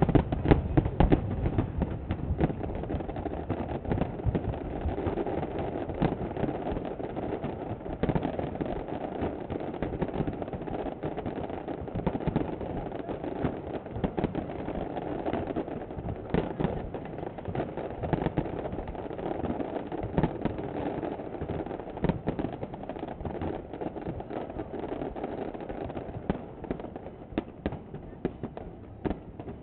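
Aerial fireworks display: shells bursting in a dense, continuous run of bangs and crackles, over a steady background murmur.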